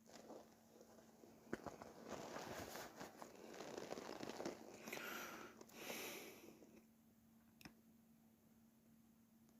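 Faint rustling and crunching lasting several seconds, with a sharp click about a second and a half in and another near the end.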